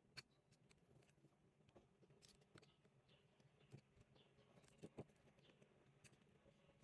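Near silence with faint, scattered small clicks and taps, the clearest just after the start and about five seconds in.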